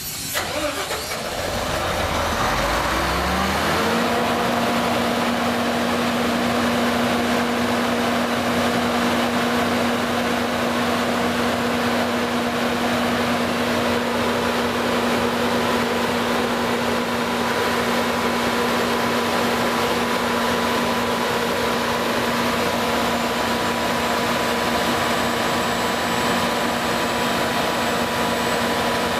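300 kW Generac standby diesel generator set starting, its pitch rising over the first few seconds as it comes up to speed, then running steadily at a constant pitch. Load is being added from a load bank as it runs.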